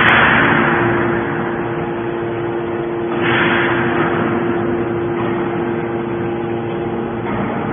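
Hydraulic scrap metal baler running: a steady machine hum, with a sudden rush of hissing noise at the start and another about three seconds in.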